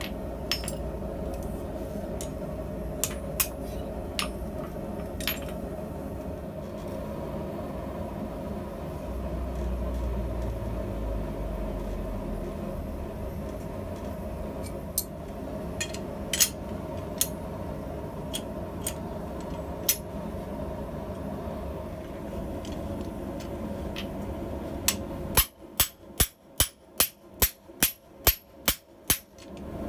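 A steady rushing noise with a few sharp metallic clicks and clinks of tools. About 25 seconds in it gives way to a fast, even run of hammer blows on a blacksmith's guillotine tool, about two and a half a second, as the red-hot steel bar is fullered.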